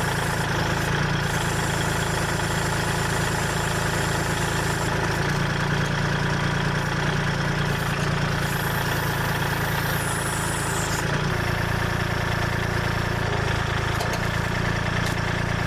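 Kubota L2501 tractor's three-cylinder diesel engine running steadily. Its note changes a little about eleven seconds in.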